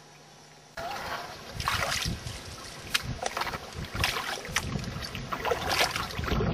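Canoe paddles dipping and splashing in river water as the canoe is paddled along, with wind rumbling on the microphone. The sound starts abruptly about a second in, after a quiet moment.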